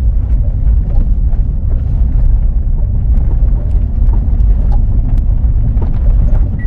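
Chevrolet Colorado pickup driving over a rough, bumpy dirt road: a heavy low rumble from the tyres and suspension with scattered small knocks and creaks. These creaks are ordinary off-road noises that the owner accepts; the harsh front-end rattle that came up through the steering wheel is gone now that the tie rods have been replaced.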